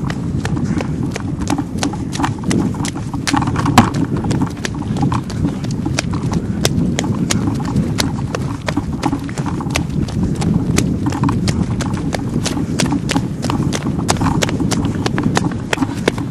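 Running footsteps on wet sand, a quick steady beat of about three steps a second, over a heavy rumble from the handheld camera being jostled and from wind on its microphone.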